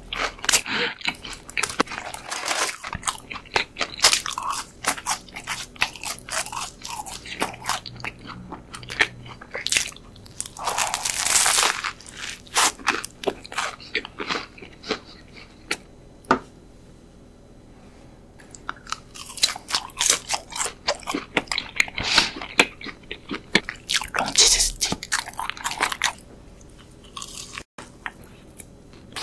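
Close-miked eating of crispy KFC fried chicken: crunchy bites into the breading and wet chewing, with several louder crunching bites and a quieter lull of chewing midway.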